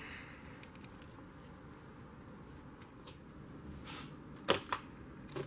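A few sharp clicks and knocks from parts or tools being handled on the workbench, with two louder knocks close together near the end.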